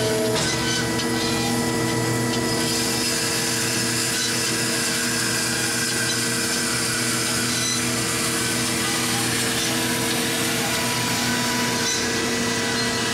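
Marvel 15A9 horizontal band saw running, its blade cutting down through a wooden block. A steady machine hum sits under the sawing noise, which grows about two and a half seconds in.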